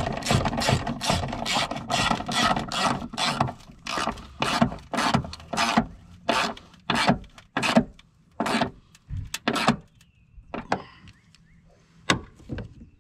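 Ratchet wrench clicking in quick strokes as a battery terminal clamp nut is tightened, about three to four clicks a second; the strokes slow and thin out and stop about ten seconds in, with a couple of single clicks near the end.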